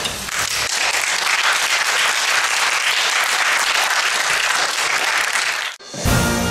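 Church congregation applauding, a steady even clapping of many hands that cuts off suddenly near the end, where theme music begins.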